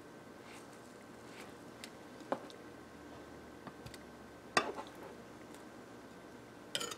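Three short sharp clicks and knocks of kitchen utensils: a knife cutting roasted beets on a plastic cutting board, and metal tongs setting a beet down in a glass baking dish. The loudest knock is about halfway through, and a short rattle of clicks comes near the end.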